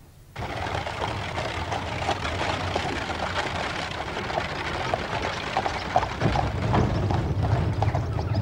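Horse-drawn carriage on the move: hooves clopping and wheels rattling and crunching, with a low rumble, starting abruptly about half a second in.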